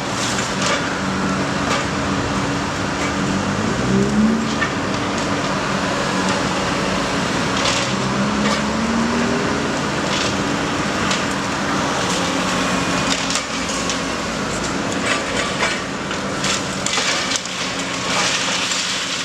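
Demolition machinery tearing down a building: a heavy machine's engine runs and revs up twice, about four and eight seconds in, under repeated cracking and crashing of breaking building material, which comes thicker near the end.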